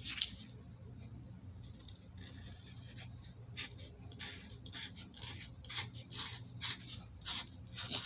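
A paint marker being handled, making faint, short scratchy rubbing strokes that come several a second from about three seconds in.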